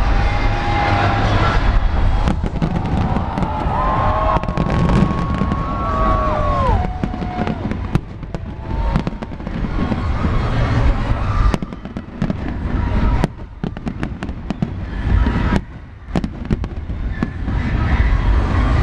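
Big fireworks display: shells bursting in a dense run of bangs and crackling, then sharper, more separate bangs in the second half.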